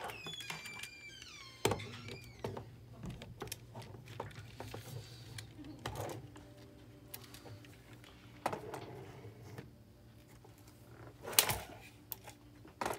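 Small objects being handled and set down: scattered clicks and knocks, loudest about a second and a half in and again near the end, over a low steady hum. A few brief high gliding squeaks in the first second or so.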